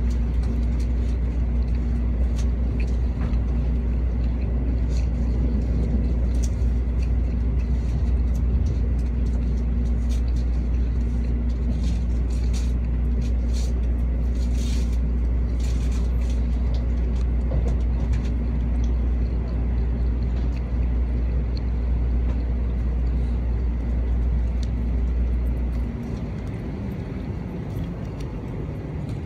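Cabin noise of an N700A Shinkansen running: a steady low rumble with a faint hum and scattered light ticks. The rumble drops off suddenly about 26 seconds in as the train comes alongside a station platform.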